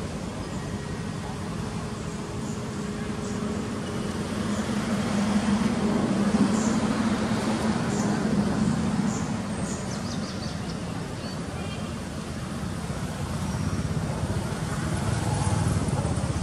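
Steady outdoor background noise: a low rumble that swells about five seconds in, eases off, and rises again near the end, with a few faint high chirps.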